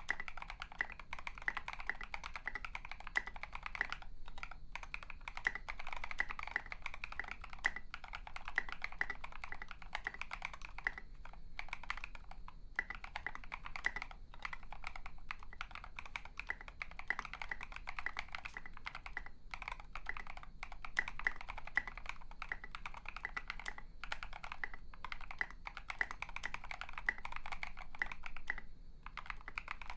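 Fast continuous typing on a KBD67 MKII polycarbonate mechanical keyboard with lubed NovelKeys Cream linear switches, an FR4 plate, case foam and SA-profile keycaps: a dense patter of keystrokes broken by a few brief pauses.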